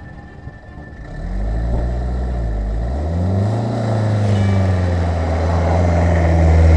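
A motor vehicle engine pulling away and speeding up from about a second in. Its pitch dips and climbs again around three seconds in, like a gear change, then it runs steadily and grows louder near the end.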